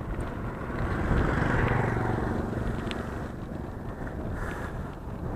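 A motor vehicle's engine passing by, growing louder to a peak about a second and a half in and fading away, over steady wind rumble on the microphone.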